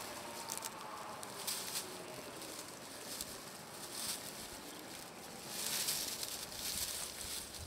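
Dry bracken and grass rustling and crackling in irregular bursts as two cats wrestle and roll in it.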